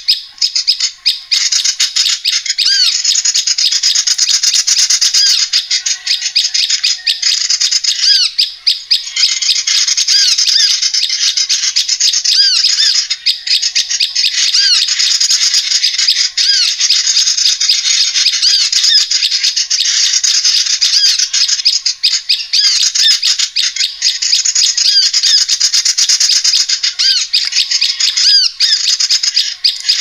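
A lure recording of small songbirds used for trapping small birds: a dense, continuous chattering of rapid ticking notes, overlaid with short rising-and-falling chirps repeated about every second, with only a few brief dips.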